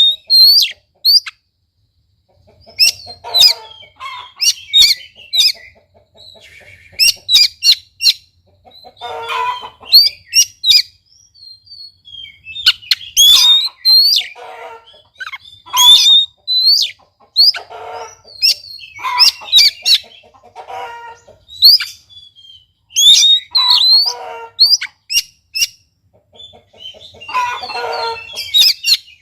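Oriental magpie-robin singing: phrases of sharp, quick whistled notes mixed with harsh rasping notes, coming in bursts every second or two with short pauses between them.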